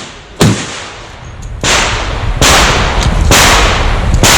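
Handgun shots being fired. There is one sharp crack about half a second in, then three heavier, drawn-out blasts about a second apart over a steady low rumble.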